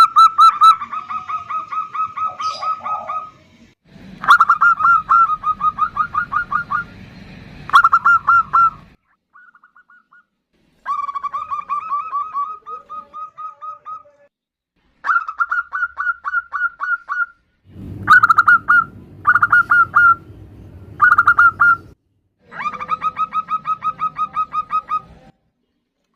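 Female zebra doves (perkutut) calling: runs of rapid staccato notes, about five a second, each run lasting a few seconds with short pauses between. This is the female's call to draw males.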